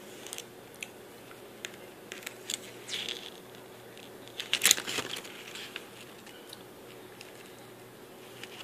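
Paper rustling and light clicks as a page of a spiral-bound booklet is handled and turned, the loudest rustle coming about halfway through, with smaller taps and rustles before it.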